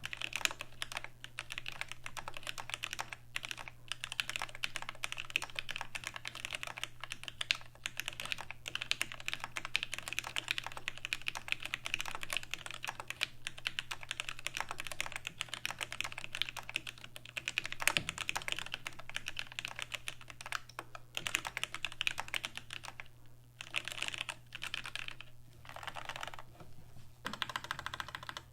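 Continuous fast typing on an ortholinear mechanical keyboard with lubed Gateron Black Ink linear switches, a steel plate and GMK keycaps: a dense run of keystroke clacks, broken by a few brief pauses in the last third.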